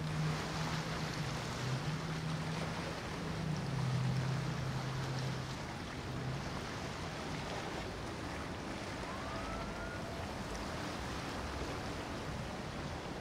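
Motor yacht passing at speed: a low engine drone that drops in pitch about four seconds in and dies away a couple of seconds later, over a steady rush of water from the hull and bow wake.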